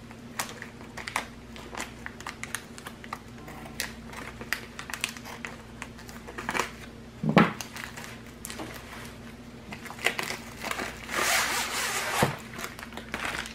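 Scissors snipping through the end of a plastic bubble mailer in a run of short cuts, with a single thump about seven seconds in. Near the end comes a longer stretch of crinkling as the rolled, wrapped canvas is slid out of the mailer.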